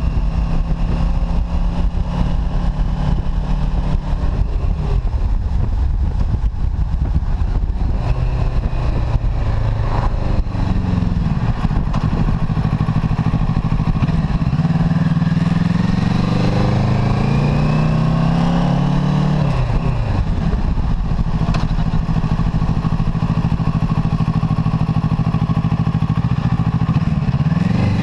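Kawasaki Ninja 650's 649 cc parallel-twin engine under way. The engine falls in pitch about a third of the way in, then pulls up steadily through the revs, dips briefly, runs level and starts to rise again near the end.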